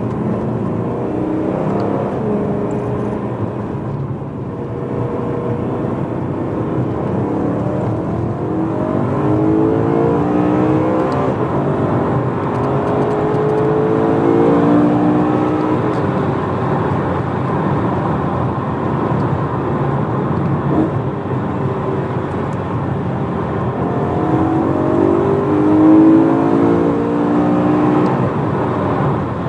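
BMW E92 M3's V8 with a primary-decat X-pipe and stock back box, heard from inside the cabin while driving over steady road noise. The engine note climbs under acceleration through the middle and again near the end.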